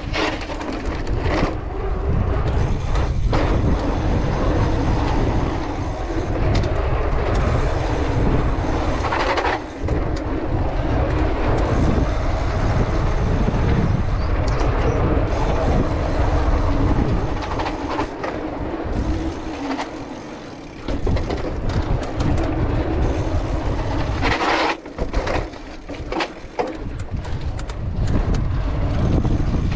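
Cross-country mountain bike riding over rough dirt, stones and paving: a steady low rumble of tyres and rattling bike parts, with scattered knocks from bumps.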